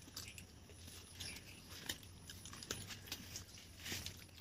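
Faint eating sounds: scattered small clicks and crunches of people eating chicken fry and rice by hand.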